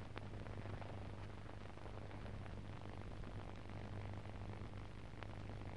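Steady hiss with a low hum and a couple of faint clicks: the background noise of a silent film transfer with no recorded sound.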